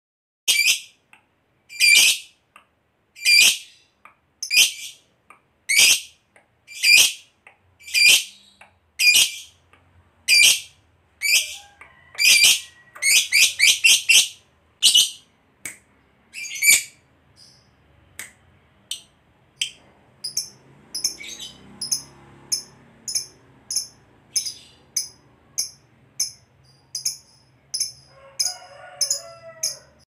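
Lovebird calling in loud, shrill single chirps about once a second, with a quick run of them around 13 seconds in. From about 20 seconds on, fainter, higher chirps come about twice a second, and a lower, rougher squawk sounds near the end.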